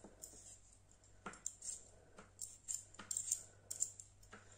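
Vegetable peeler scraping the skin off a potato in short, irregular strokes, a dozen or so, faint.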